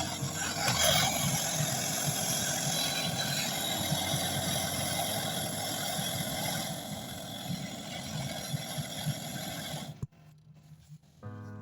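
Gas brazing torch flame hissing steadily while copper refrigeration pipe joints are brazed, cutting off abruptly about ten seconds in.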